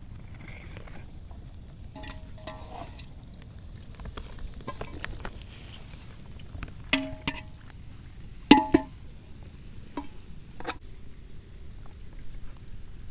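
Stainless steel bowls clinking and ringing as hands handle masala-coated fish pieces in them: a few sharp metallic clinks, the loudest pair about eight and a half seconds in, over a steady low rumble.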